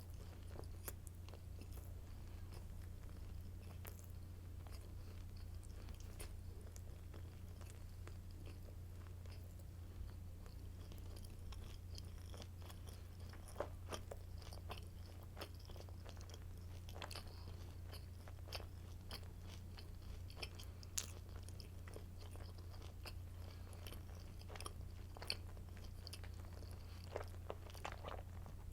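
Close-miked chewing and crunching of crisp garlic baguette sticks: irregular crackly bites and chews, with a few sharper crunches standing out, over a steady low hum.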